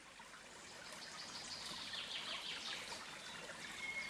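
Running water with birds chirping over it, swelling up from faint in the first second.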